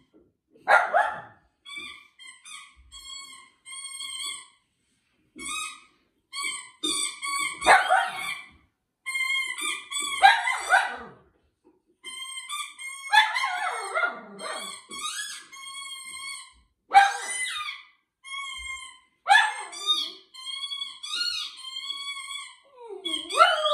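Miniature poodle puppy barking every few seconds, single sharp barks, over a running string of short high squeaks from a squeaky toy being chewed on the TV's soundtrack.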